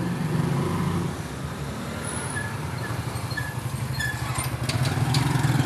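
Street traffic with a motorcycle engine running steadily, growing louder near the end, and a few short high chirps in the middle.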